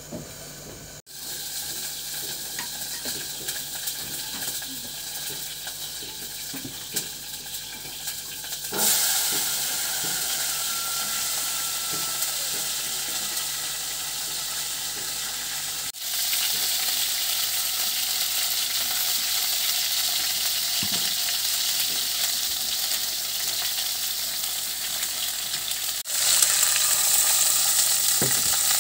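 Green beans sizzling as they are stir-fried in a steel pot over a gas flame. The steady sizzle is quieter at first, then steps up about nine seconds in and again near the end.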